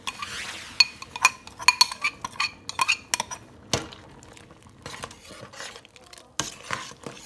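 A metal spoon clinks and scrapes against a ceramic bowl and a stainless steel pot as soaked small tapioca pearls are scraped in and stirred. The clinks come in a quick, irregular series of sharp, ringing knocks.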